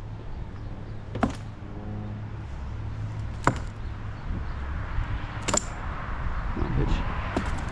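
Three sharp clicks or knocks, about two seconds apart, over a low steady rumble.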